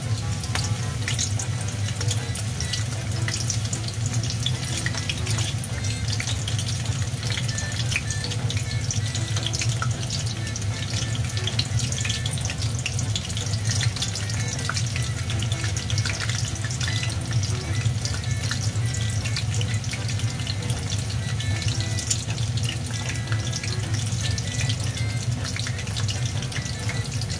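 Battered vegetable-and-shrimp tempura fritters deep-frying in hot oil: a steady sizzle full of small crackles, over a steady low hum.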